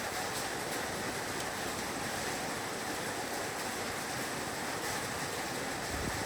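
Heavy rain falling on a roof: a dense, steady hiss of drops.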